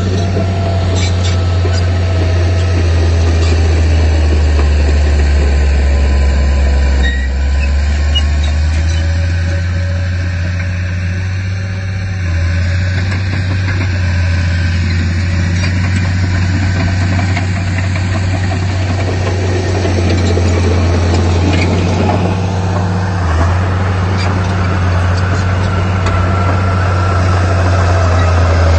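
Heavy diesel engine of earthmoving machinery running steadily with a low drone.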